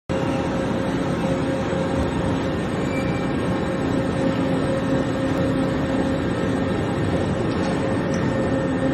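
HNK HB-130 CNC horizontal boring mill running: a steady mechanical hum with a constant tone.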